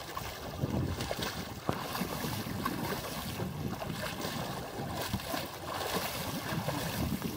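Water splashing against the side of a small boat as a hooked marlin thrashes at the surface beside the hull, with wind buffeting the microphone.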